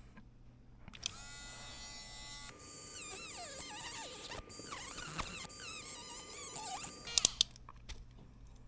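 A small handheld electric tool's motor runs for about six seconds from about a second in, cutting the part. Its whine is steady at first, then wavers up and down in pitch as it bites. A few sharp clicks come near the end as it stops.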